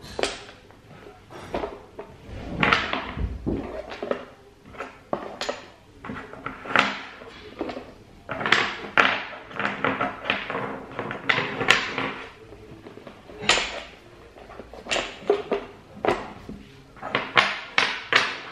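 Wooden Jenga-style blocks clacking against one another and the tabletop as they are picked from a loose pile and stacked into a tower, a steady series of irregular knocks and clicks.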